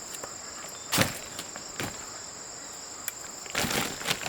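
Insects droning steadily at a high pitch. A sharp knock comes about a second in, a few lighter knocks follow, and there is a short rustling scrape near the end.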